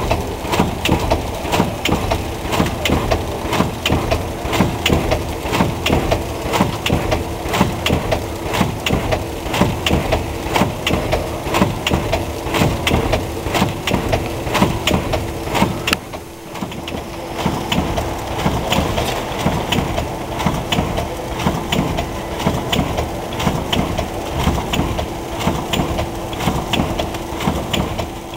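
UVA Lima vertical form-fill-seal packaging machine running as it forms doy-style stand-up bags: a dense, continuous clatter of rapid mechanical clicks and knocks over a steady hum. It drops briefly a little past halfway, then carries on.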